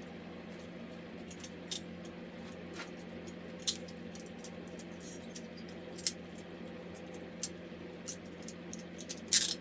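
Metal handcuffs being handled, with scattered light metallic clicks and clinks and a louder clatter about nine seconds in.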